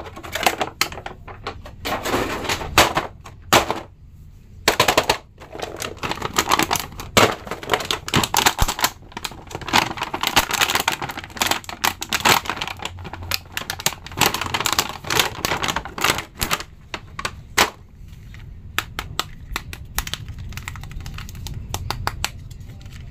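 Crinkling and crackling of a clear plastic bag and packaging as an action figure is unwrapped, with irregular clicks and rustles of plastic being handled.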